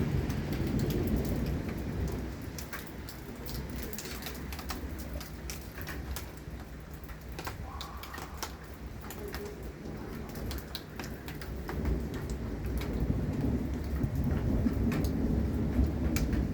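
Rain falling, with single drops ticking sharply on a nearby surface, over a low rumble of thunder. The rumble eases in the middle and swells again over the last few seconds.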